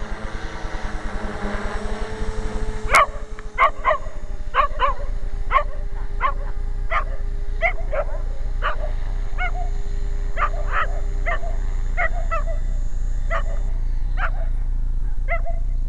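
A dog barking over and over, about one to two barks a second, starting about three seconds in. Under the barks runs the steady whine of a small electric RC helicopter, which fades out near the end.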